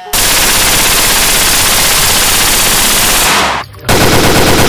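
Submachine gun firing on full automatic: one long burst of about three seconds, a brief break, then a second, shorter burst.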